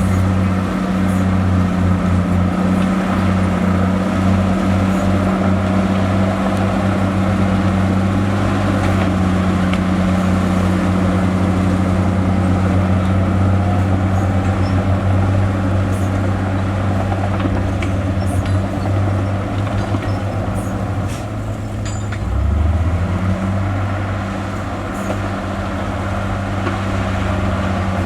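Heavy diesel engine of earthmoving equipment running steadily under load, with a deep, even hum; about two-thirds of the way through the engine speed drops briefly and then picks back up.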